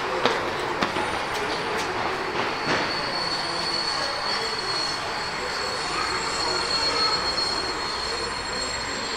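H0-scale model passenger train running slowly along the layout's track: a steady rolling noise, a few clicks in the first couple of seconds, and a thin high whine that comes in about three seconds in and holds steady.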